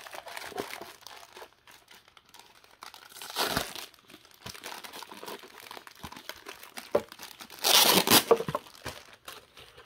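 Clear plastic parts bags crinkling and a cardboard insert rustling as they are handled, in scattered bursts, with a louder burst about three and a half seconds in and the loudest around eight seconds in.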